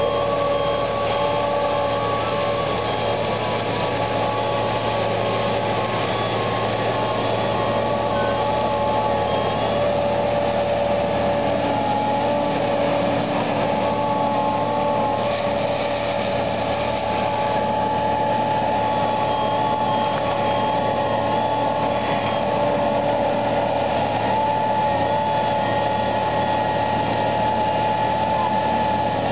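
Gyro-Trac GT-25XP tracked brush mulcher running steadily while mowing manzanita brush: an even machine drone with several held whining tones over it that shift slightly in pitch now and then.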